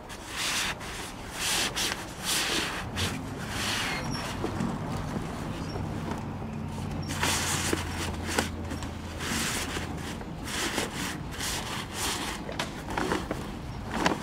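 Stiff new mainsail sailcloth rustling and crackling in repeated bursts as it is pulled from its sail bag and handled: a crisp sound.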